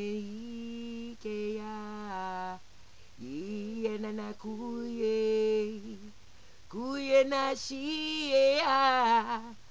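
A woman singing a devotional song unaccompanied, in long held notes. There are three phrases with short breaths between them, and the last phrase is higher and louder.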